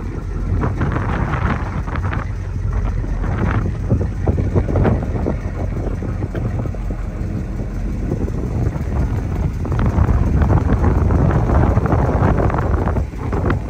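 1961 Plymouth Fury's engine running, a dense low rumble that grows a little louder from about ten seconds in.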